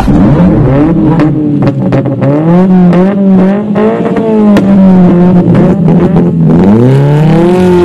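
Sports car engines revving in place, the pitch climbing and dropping back again and again, with a few sharp cracks in between.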